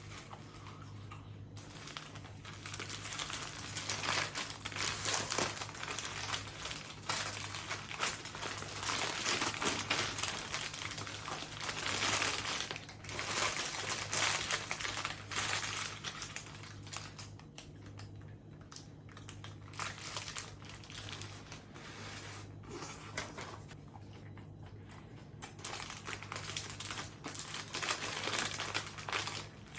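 Crinkling and rustling of paper food wrapping, handled on and off, mixed with chewing, over a faint steady low hum.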